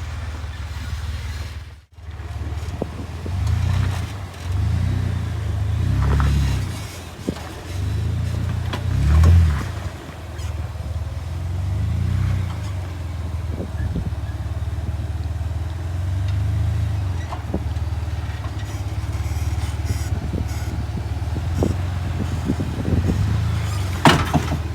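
Off-road 4x4's engine crawling over rocks, revving up and down in short, uneven swells every second or two, with scattered knocks and a sharp click near the end.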